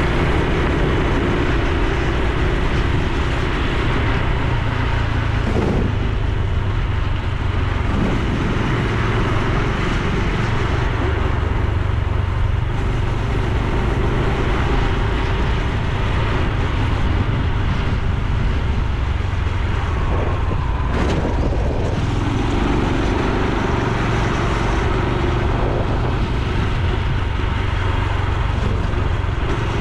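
Honda Super Cub C125's single-cylinder engine and exhaust running steadily under way, over a continuous rushing noise.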